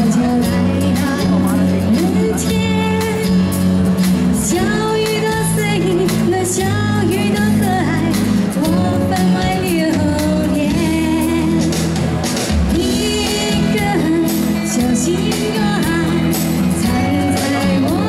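A woman singing a pop song live over instrumental accompaniment, the melody sung in phrases of held and gliding notes.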